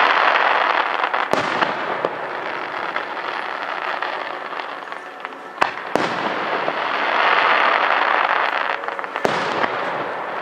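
Aerial firework shells bursting overhead: about five sharp bangs, a close pair about a second and a half in, another pair near six seconds and one more just after nine seconds, over a continuous noisy wash between them.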